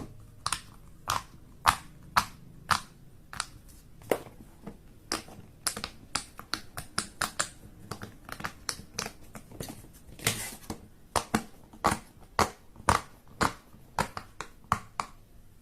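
A handheld fidget toy being popped by hand over and over: short, sharp clicks, roughly two a second.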